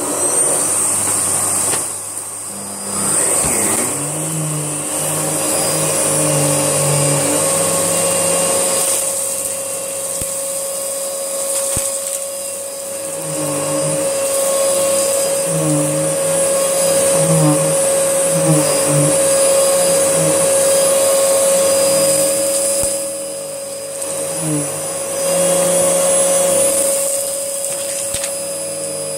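Miele Dynamic U1 upright vacuum cleaner running as it cleans up a test mess of dust, dog biscuits and dried mud. Its motor whine is steady while the overall loudness rises and falls as it works across the mess.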